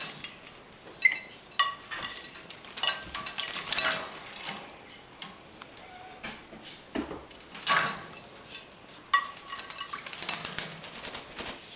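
Red lory bathing in a shallow glass water dish: irregular splashing and wing fluttering, with sharp clinks against the glass.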